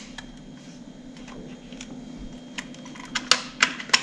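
Plastic housing of a clothes iron being pressed back onto its body: handling noise, then several sharp plastic clicks in the last second and a half as the shell snaps into place. A low steady hum runs underneath.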